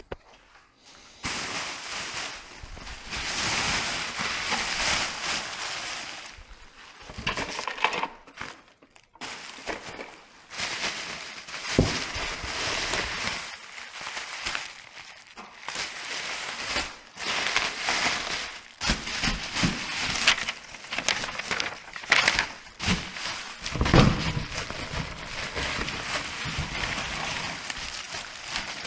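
Bubble wrap and plastic packaging crinkling and rustling as wrapped parts are handled and shifted in a cardboard box, with a few dull knocks, the heaviest about 24 seconds in.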